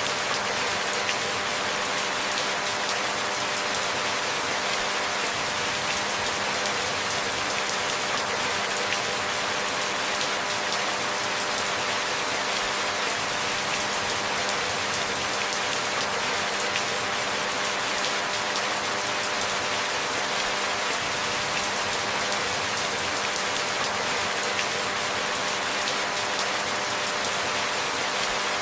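Steady rain falling, an even hiss of many drops with no changes or thunder. A faint steady hum lies underneath.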